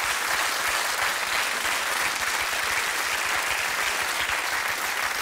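Studio audience applauding steadily after a joke.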